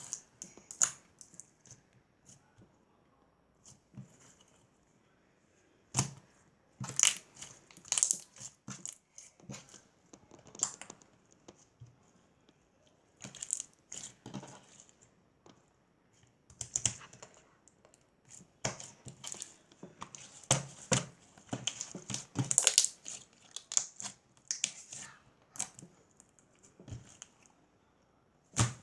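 Irregular rustling, crinkling and light clicks of things being handled close to the microphone, coming in scattered clusters with short pauses between.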